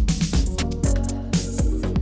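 Background music with a steady electronic beat and bass.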